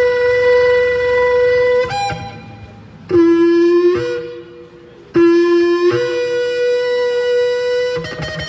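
Shofar blown in a sequence of blasts: a long held note that breaks briefly upward about two seconds in, two short, lower and rougher blasts, then another long held note.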